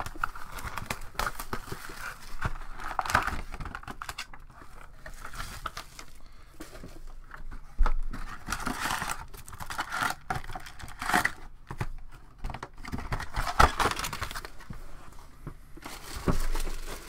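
Packaging crinkling and tearing as a new, sealed box of SP Authentic hockey cards is opened, with a few sharp knocks as the box is handled.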